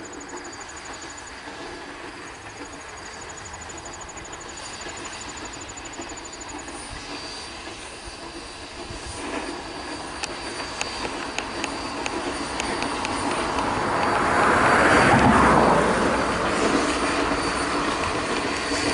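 Ex-Canadian Pacific 4-4-0 steam locomotive No. 136 approaching and running past with its passenger coaches, its working noise building steadily to a peak about fifteen seconds in, then easing a little. Insects trill in the first few seconds.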